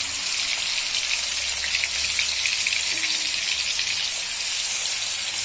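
Spice-marinated fish pieces sizzling as they shallow-fry in hot oil in a kadhai: a steady hiss with small crackles.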